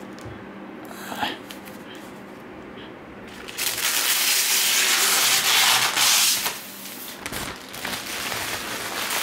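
Protective plastic film being peeled off a PC case's glass side panel: a loud tearing crackle for about three seconds in the middle, with quieter rustling of the film around it and a click about a second in.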